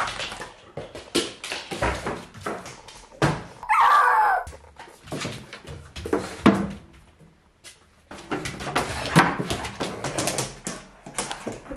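German shepherd rushing about, its claws clicking and scrabbling on a wooden floor with scattered bumps, and one short whine about four seconds in: the excitement of a dog back home after a long absence.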